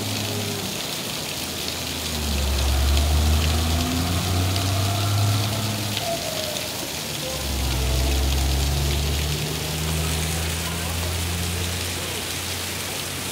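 Heavy rain falling steadily, with the low engine rumble of vehicles passing on the wet street, among them a box truck. The rumble swells twice, around three and eight seconds in.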